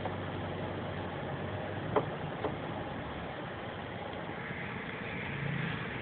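Toyota car's engine and tyres running steadily at low speed, heard from inside the cabin. Two short clicks about two and two and a half seconds in, the first the louder.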